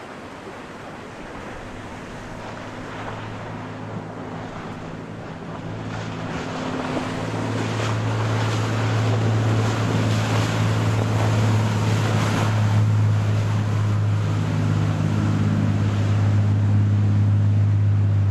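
An 80-foot Viking sportfishing yacht's diesel engines running hard, a steady low drone that grows much louder as the boat closes in and passes close by. The rush of its bow wave and wake over the surf peaks midway.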